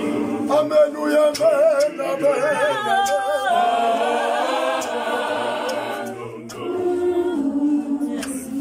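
Church choir of men's and women's voices singing a hymn a cappella, without instruments. A high lead line with a strong wavering vibrato comes first, the choir then holds a long chord for a couple of seconds, and lower men's voices carry on near the end.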